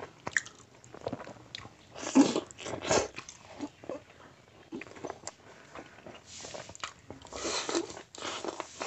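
Close-miked eating sounds: a man biting and chewing curry-soaked rice and meat eaten by hand, with wet mouth sounds in irregular bursts, the loudest about two to three seconds in.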